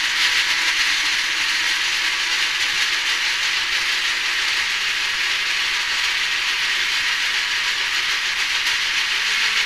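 Countertop blender running loudly and steadily, blending chopped peaches and mangoes with coconut milk into a shake.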